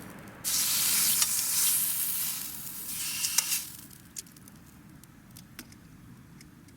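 Beef tongue frying in a hot pan over a campfire. A loud sizzle starts suddenly about half a second in, then falls away after about three seconds to a faint crackle with scattered clicks.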